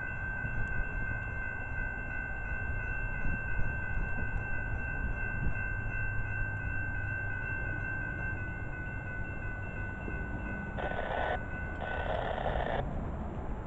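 Electronic railroad crossing bell ringing steadily as the gates rise after a train has cleared; it stops about ten seconds in. Then a car drives past close by.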